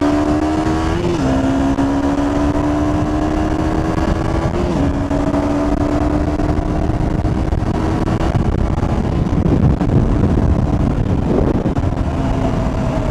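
KTM 125 Duke's single-cylinder 125 cc engine under throttle, its pitch climbing slowly as the bike gathers speed. Two brief breaks in the tone, about one and four and a half seconds in, sound like upshifts. Wind rushes over the microphone and grows heavier later on.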